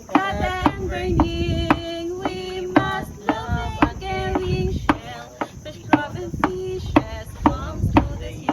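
A voice singing in long held notes over a steady beat of sharp clicks, about two a second.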